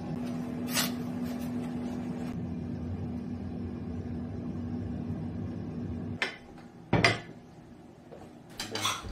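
Dishware clinking in a kitchen over a steady, low appliance hum. There is a light clink about a second in. The hum stops about six seconds in, then a sharp ceramic clink comes about seven seconds in, the loudest sound, and a few more clinks follow near the end.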